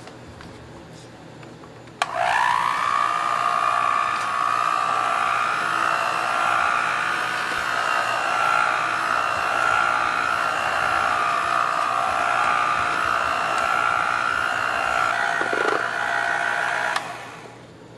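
Electric hand mixer switching on about two seconds in with a rising whine as it spins up, then running steadily as its beaters mix flour, butter and egg into crepe batter in a stainless steel bowl, and switching off about a second before the end.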